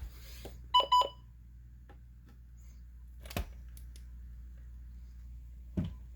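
Two short electronic beeps in quick succession about a second in, followed by two sharp clicks later on, over a steady low hum.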